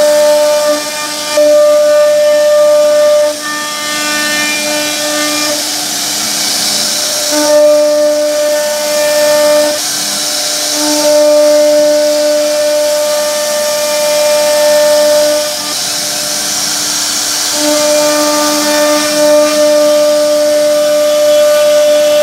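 CNC router spindle whining steadily while its bit carves grooves into a wooden panel, with the hiss of the cut. The whine drops out and comes back several times, and the hissing swells each time it drops.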